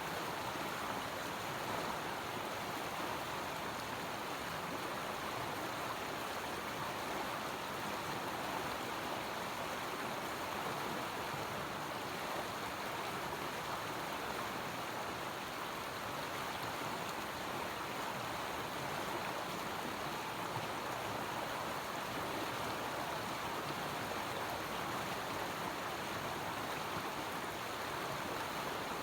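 River water flowing, a steady rushing with no change in level.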